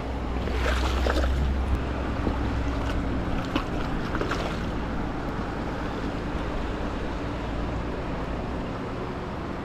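Shallow river water rushing and splashing around a wading angler's legs, with wind rumbling on the microphone, strongest in the first couple of seconds.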